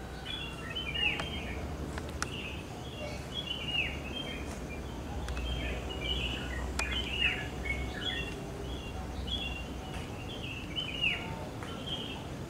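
Small birds chirping, a stream of short, downward-sliding chirps several times a second, over a steady low hum, with a few sharp clicks.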